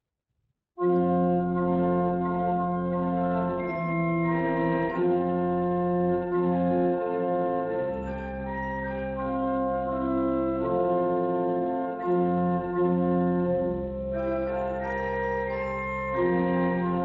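Organ playing the postlude, starting about a second in: slow sustained chords over held bass notes.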